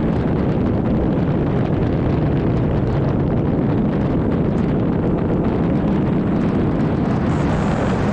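Steady, loud rush of wind buffeting the microphone, with no engine note, as air streams past an airborne camera.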